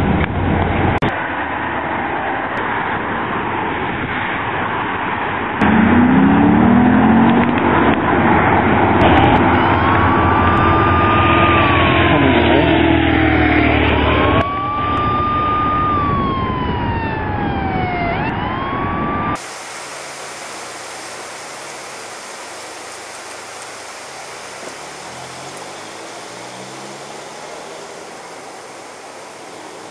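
Police car siren wailing in several cycles, each rising, holding high, then sliding slowly down, starting about a third of the way in, over loud road and wind noise. After an abrupt cut about two-thirds in, a quieter stretch of vehicle noise follows.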